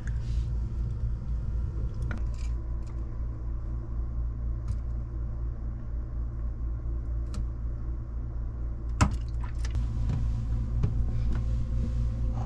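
Small clicks and knocks of hand work on an electrical plug's wiring, over a steady low rumble. The sharpest click comes about nine seconds in.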